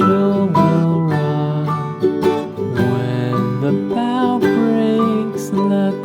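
Background music: a gentle plucked acoustic guitar tune.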